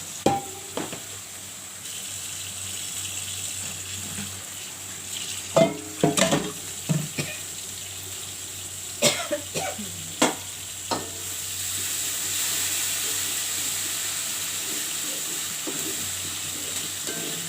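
Food frying and sizzling in a pan, stirred with a utensil that knocks against the pan several times; the sizzling grows louder about twelve seconds in.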